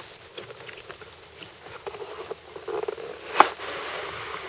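Scissors snipping through a cardboard box, then cardboard rubbing and rustling as an inner box slides out of its sleeve, with small scattered clicks and one sharp click about three and a half seconds in.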